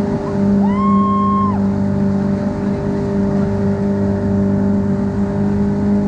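An engine running steadily at a constant speed, with a brief high whistle-like tone that rises, holds and falls about a second in.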